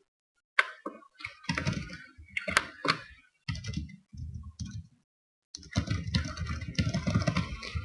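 Typing on a computer keyboard: quick runs of keystrokes broken by a couple of short pauses.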